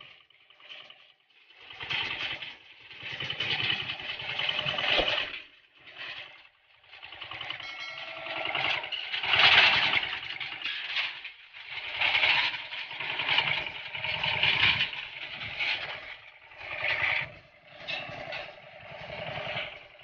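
Engine of a homemade motorcycle-based power weeder running as the machine drives along, its sound rising and falling in repeated swells with brief dips between them.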